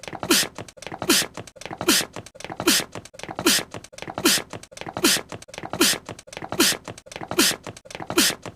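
A cartoon character's small, cute sneeze, looped over and over: about eleven identical sneezes, one every 0.8 seconds or so, each a brief falling squeak of the voice with a sharp hissy burst.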